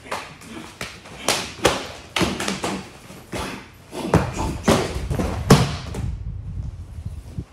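Rapid slaps, claps and taps of hands and forearms meeting and blocking in a fast hubud stick-and-empty-hand partner drill, with steps on a training mat; about a dozen sharp impacts, the heaviest thud about five and a half seconds in as the partner goes down onto the mat.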